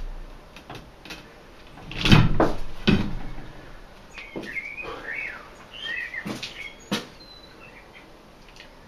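Rubber tire and steel rim knocking and rubbing on a manual wall-mounted tire changer as the tire is worked onto the rim: two heavy thumps about two and three seconds in, then a few sharp clicks. Brief high chirps come in the middle.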